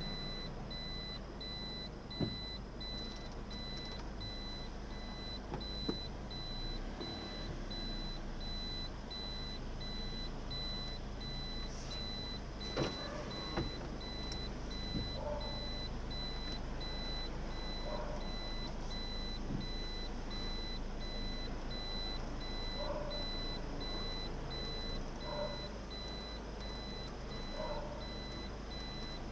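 Toyota Corolla Altis (11th generation) reversing slowly: a steady low vehicle hum with a thin, high repeating beep. Scattered short clicks and squeaky creaks are the abnormal reversing noise being recorded.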